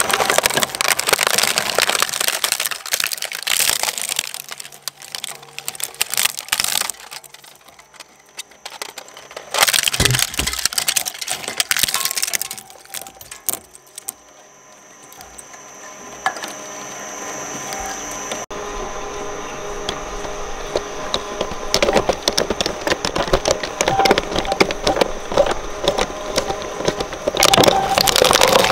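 Twin-shaft shredder's steel cutter discs crunching and tearing up plush and plastic minion toys: irregular crackling and snapping in bursts, easing off about eight seconds in and again in the middle before building back up. A thin high whine comes and goes.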